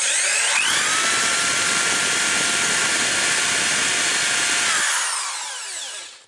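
Hand drill with a 2.7 mm bit drilling a hole in a VW Polo Sedan's front brake caliper bracket, to fit an anti-rattle spring. The motor spins up, runs steadily for about five seconds while cutting, then is released and winds down.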